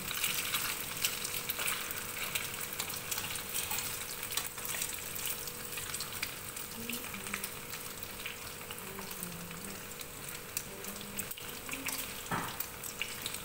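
Slices of Chinese-style lechon meat frying in hot oil in a pan: a steady sizzle full of small crackling pops as the slices are turned with metal tongs.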